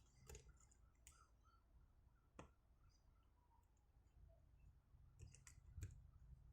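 A few faint, sparse clicks of a lock pick and tension bar working the pin stack inside a vintage Schlage padlock, otherwise near silence.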